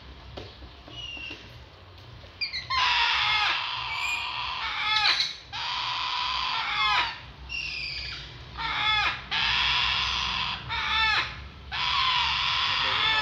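Baby parakeets giving harsh, raspy begging calls as they are fed from a syringe. The first couple of seconds are fairly quiet, then the calling runs in long loud stretches with short breaks.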